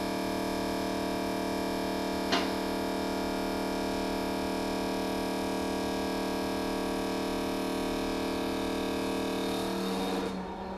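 Battery-powered fuel transfer pump running with a steady hum as it pumps engine oil from a 5-gallon pail through its hose and nozzle. A single sharp click comes about two seconds in, and the steady hum breaks up just before the end.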